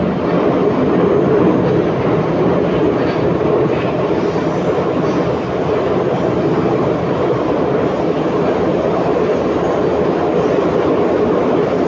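Inside an 81-714.5 metro car running through the tunnel: a steady rumble of wheels on rail and running gear.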